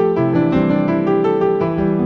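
Background music played on a keyboard, with notes changing several times a second.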